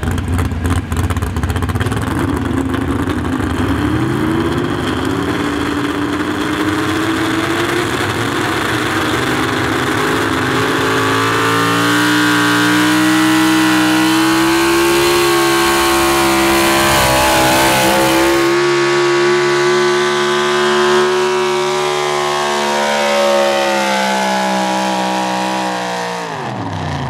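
A pro stock 4x4 pulling truck's engine, in a Ford F-series pickup, running hard under load as it drags a weight-transfer sled. The revs climb over the first several seconds, then hold high and steady. Near the end the revs fall away sharply as the throttle comes off at the end of the pull.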